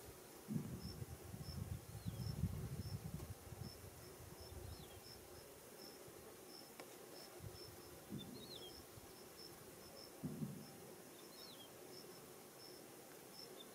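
Open grassland ambience: a high insect chirp repeating about twice a second, with a short, high, falling bird call every few seconds. Low, rough bursts of sound come in the first few seconds and twice more later, louder than the rest.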